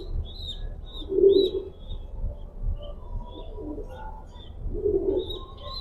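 Pigeon squabs giving short, high begging peeps, two or three a second, while a parent pigeon feeds them. A low pigeon coo sounds about a second in and again near the end.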